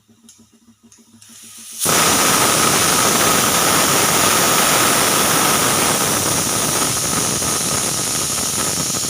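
Pressure cooker whistle blowing: after a brief rising hiss, the weight lifts about two seconds in and steam jets out in a loud, steady, shrill whistle-hiss, showing the cooker has reached full pressure.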